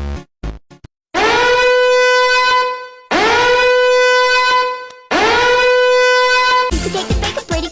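Three long, loud horn blasts of about two seconds each, each one scooping up slightly in pitch as it starts, after a few short beats at the opening; rhythmic music comes back in near the end.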